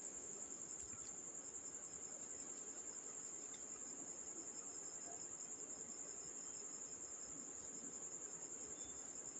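Faint, steady high-pitched chirping of a cricket, a rapid even trill that doesn't let up.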